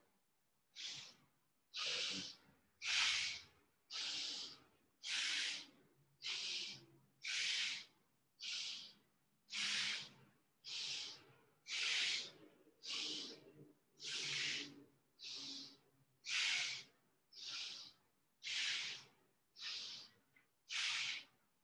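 Bhastrika (bellows breath) pranayama: forceful breaths in and out through the nose, about one a second, some twenty in a row.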